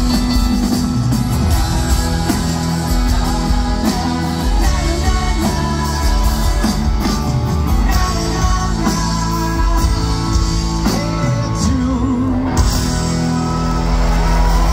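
Pop-rock band playing live, with lead vocals over guitar and a full band.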